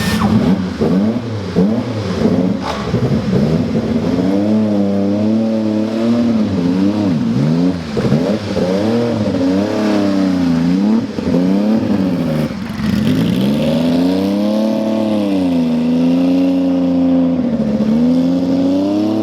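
A car engine revved over and over, its pitch rising and falling with each throttle blip. The blips come quickly through the first half, then give way to longer, slower swells.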